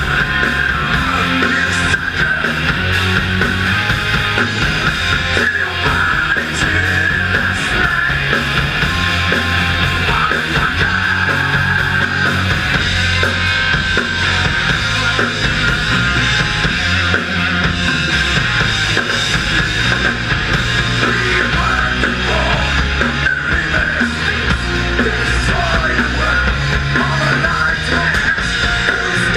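Live rock band playing loudly: electric guitars, bass guitar and drum kit.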